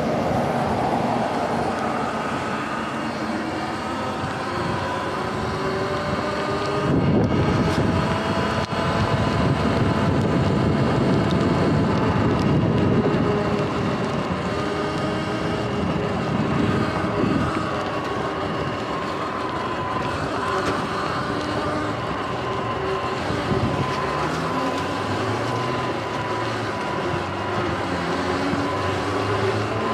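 Sur-Ron Light Bee electric dirt bike riding along, its motor whining in several thin tones whose pitch drifts slowly with speed, over a steady rush of tyre noise on wet pavement and wind on the microphone. About a quarter of the way in the wind rush grows louder for several seconds.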